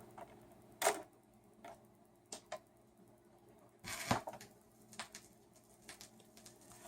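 Clicks and clunks from the automatic tonearm mechanism of a Pioneer PL-670 direct-drive turntable cycling after the start switch is pressed, with a sharp click about a second in and the loudest cluster of knocks about four seconds in, then scattered light ticks.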